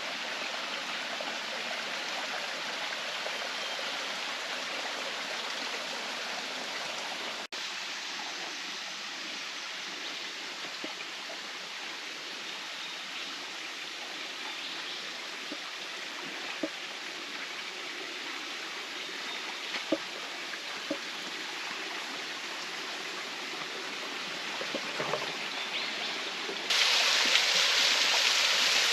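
Rainforest creek water running steadily, with a few faint clicks. A little before the end the rushing water suddenly becomes louder and brighter.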